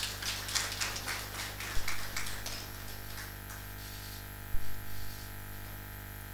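Scattered hand clapping from the audience that fades out after a few seconds, over a steady mains hum, with two short dull thumps.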